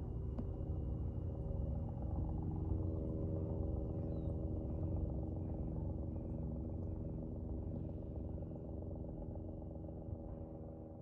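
A steady engine drone over a low rumble, holding an even pitch and fading out near the end.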